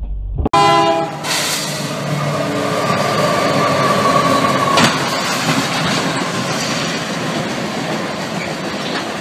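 Freight train horn sounding briefly, then the loud rumble and rattle of the passing freight train with a steady high tone, and a sharp crash about five seconds in as the train strikes a vehicle at a level crossing.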